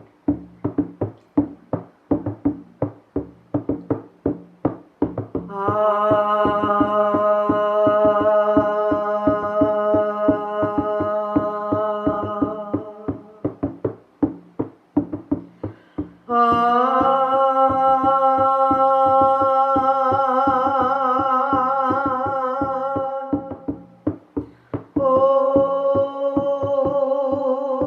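A drum beaten in a steady, even rhythm, with a voice singing long wordless held notes over it three times, the middle note wavering in pitch.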